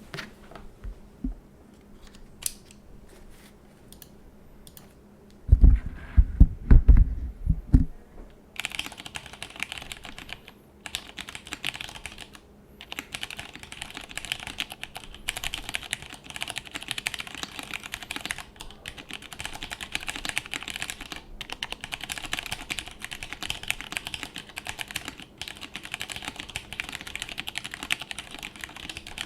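Plateless mechanical keyboard with lubed vintage Cherry MX Brown switches being typed on: a few scattered keystrokes at first, then steady continuous typing from about eight seconds in. Several loud low thumps come just before the typing starts.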